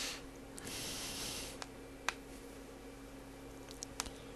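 A desk microphone's steady electrical hum and hiss, with a soft breath-like hiss near the start and a few short sharp clicks spread through the rest.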